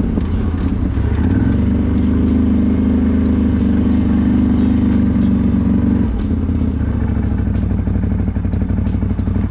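CFMoto 1000 ATV engine running under throttle. It revs up about a second in, holds a steady higher pitch, and eases off about six seconds in, with scattered light clicks over it.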